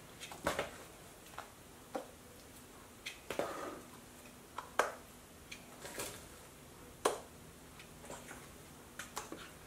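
A metal spoon scooping mashed potatoes out of a stainless steel mixing bowl into small bowls: scattered light clicks and knocks of the spoon against the bowls, a few of them sharper.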